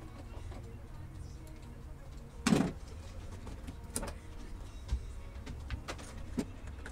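Scattered metallic clanks and clicks of hand tools and loosened parts during work on a car's intake and throttle body, with one louder clank about two and a half seconds in and a few lighter knocks after it, over a low steady hum.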